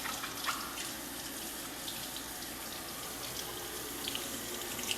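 Hot water running from a tap and splashing over a dishwasher filter as it is rubbed and scrubbed under the stream, with a few faint ticks.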